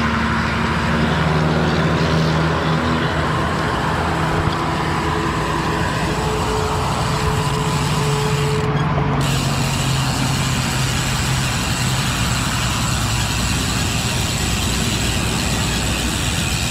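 Road traffic: a motor vehicle's engine hum holds steady, then sags slightly in pitch and fades out about twelve seconds in, over a continuous rushing noise.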